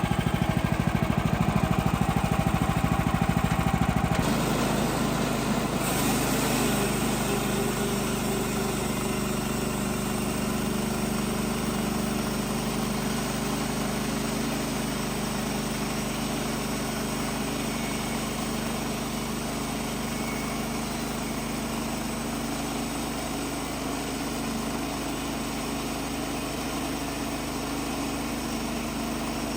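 Kohler engine of a Woodland Mills HM130 Max bandsaw mill running steadily. Its sound shifts about four seconds in, then settles into an even hum.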